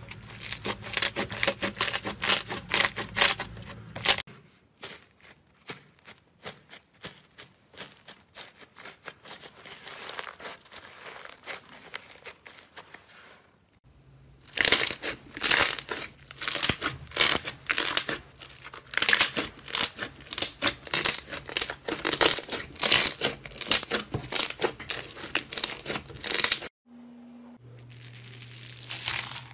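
Hands pressing, squeezing and poking slime: fast runs of sticky crackles and pops. The sound changes with each clip, quieter for a stretch after the first few seconds, then louder and denser from about halfway through.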